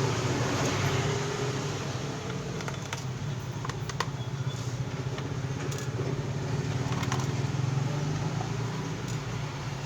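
Occasional small clicks and ticks of a screwdriver undoing the screws on a laptop's bottom panel, over a steady low background hum.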